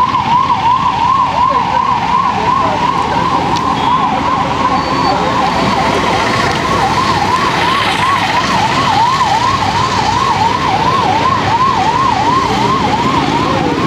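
Electronic emergency-vehicle siren yelping, its pitch sweeping rapidly up and down about twice a second at a steady level, over street traffic noise.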